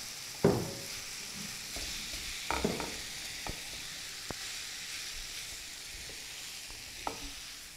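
Mashed boiled potatoes being stirred into spiced mint-coriander masala in a hot nonstick pan with a silicone spatula: a steady sizzle of the frying masala, with a few short knocks of the spatula against the pan.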